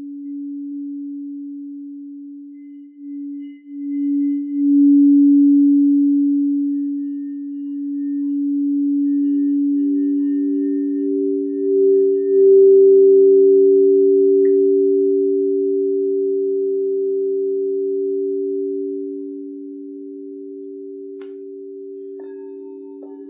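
Singing bowls ringing in long, steady, pure tones. A lower bowl swells in from the start, and a higher bowl joins after several seconds and becomes the loudest about halfway through. Both ease off near the end as fainter, higher tones come in.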